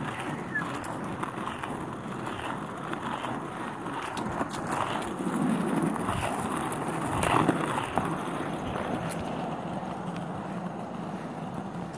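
Skateboard wheels rolling over an asphalt path: a steady rough rumble with a few small clicks from bumps, growing louder in the middle before easing off.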